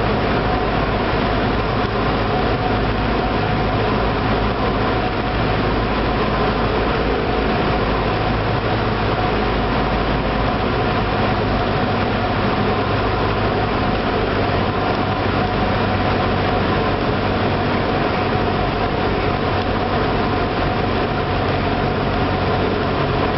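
Cessna 172's piston engine and propeller running steadily, heard from inside the cabin over a constant rushing hiss, as the plane descends on final approach to land.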